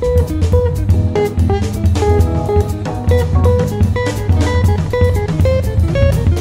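Instrumental background music: a melody of short plucked notes over a drum kit keeping a steady beat.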